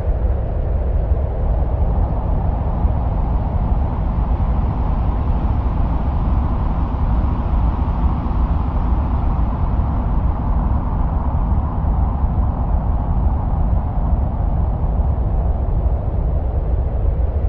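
Steady, unbroken wind-like rumble, heaviest in the deep low end with a hiss above it, presented as the sound of Mars.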